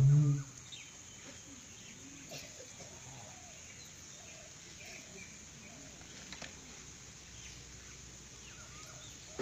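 Yak bera ritual drumming dies away about half a second in. It leaves a lull of faint outdoor background with scattered faint bird calls.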